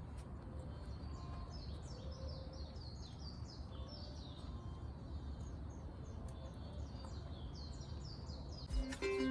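A small songbird chirping in a quick run of short, high, repeated notes over a steady low outdoor rumble; plucked ukulele music comes in near the end.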